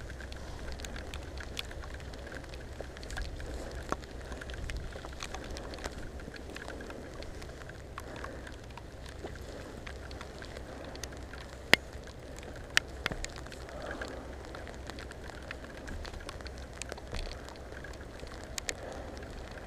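Steady rain patter with drops tapping sharply close to the microphone, over a low rumble. A few louder taps come about two-thirds of the way through.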